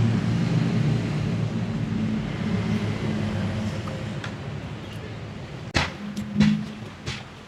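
A motor vehicle's engine humming steadily and slowly fading, with a few sharp clicks near the end.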